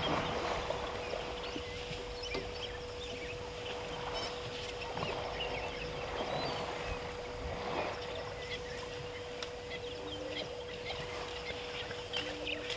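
African elephants wading and splashing through shallow waterhole water, the water sloshing in repeated surges around their legs, with a steady hum underneath.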